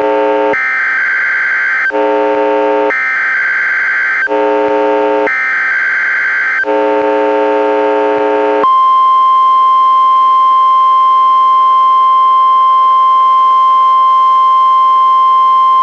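NOAA Weather Radio test heard through a weather radio receiver. First come three short bursts of warbling SAME digital header data, with a buzzing interference tone between them. Just past halfway these give way to the steady 1050 Hz warning alarm tone, which holds a single pitch to the end.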